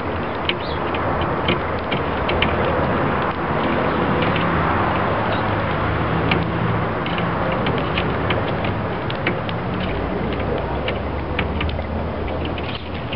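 Sparrows pecking bird seed off a glass table top: many quick, irregular clicking taps that sound like Morse code, over a steady background noise.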